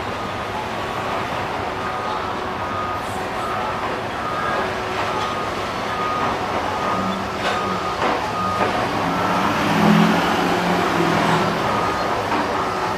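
Freight train of covered grain hopper cars rolling past, a steady rumble of wheels on rail mixed with city road traffic, with a vehicle engine passing nearer in the second half. An intermittent high beeping repeats in the background.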